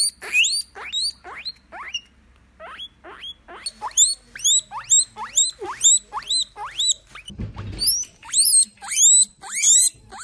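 Guinea pig wheeking: a long string of short rising squeals, about two to three a second. There is a brief pause about two seconds in, and the calls grow louder and higher near the end.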